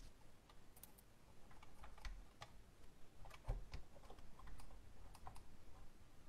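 Faint, scattered light taps and clicks from fingers handling small pieces on a hard plastic toy car body and a tabletop, the sharpest about halfway through.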